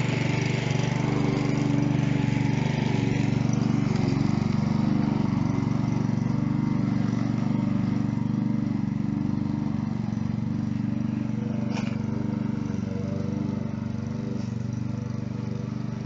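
Walk-behind rotary lawn mower running steadily while cutting grass, slowly fading as it moves away, with one brief click about twelve seconds in.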